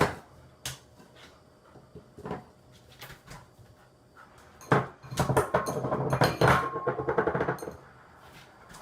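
A pet animal vocalising loudly for about three seconds, after a few light clicks and knocks.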